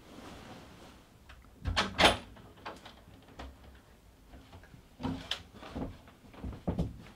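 Door sounds: a door shutting with a loud thud about two seconds in, then quieter knocks and clicks as a door is opened.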